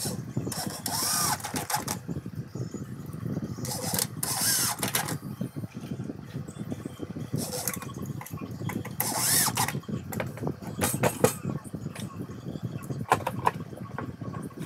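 Homemade grinding machine's motor running steadily, with three loud hissing bursts of grinding as work is pressed against the abrasive, and a few sharp ticks near the end.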